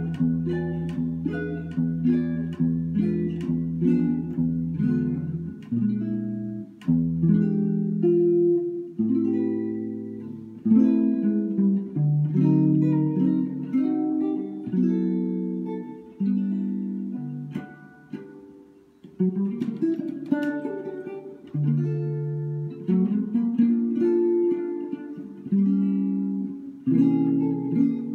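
Solo archtop hollow-body guitar playing a slow chord-melody piece: fingered chords ring and change every second or so, with single melody notes above them.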